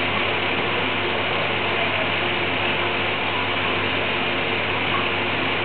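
A machine running steadily: an even hiss with a low hum underneath, unchanging throughout.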